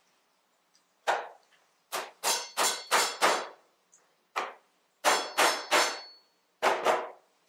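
A small hand tool striking an object on a hard desktop: about thirteen sharp knocks, in quick runs of about three a second with short pauses between.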